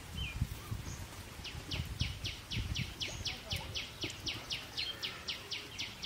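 A high, short call repeated steadily about four times a second, starting about a second and a half in, from a bird or calling insect, over outdoor background noise with a few low rumbles near the start.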